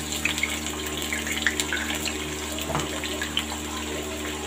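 Sliced onions sizzling in hot oil in a kadai: a steady frying hiss with many small crackles and pops.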